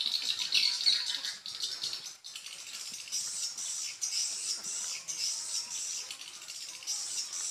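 Swiftlets chirping and twittering: a dense, high-pitched chatter that shifts higher about two seconds in.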